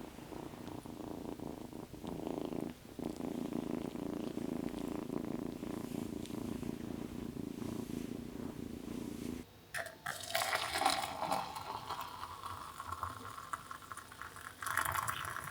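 A cat purring steadily. About nine and a half seconds in, the purring cuts off abruptly and a higher, scratchy rustling noise follows.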